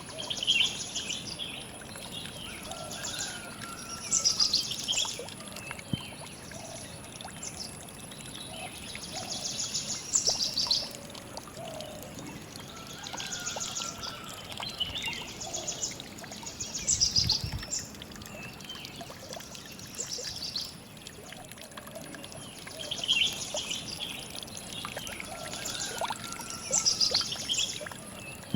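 Songbirds singing: a bright, rapid, high trilling phrase repeats every few seconds over a steady background hiss.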